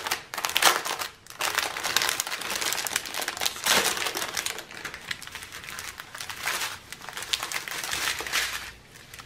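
Clear plastic bag and a strip of small plastic packets of diamond-painting drills crinkling and crackling as they are handled, unfolded and pressed flat.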